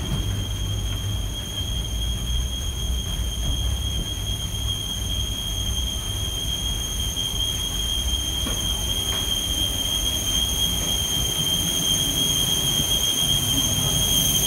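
Aircraft noise at the gate: a steady high-pitched turbine whine over a low rumble, from the parked jet and its ground equipment.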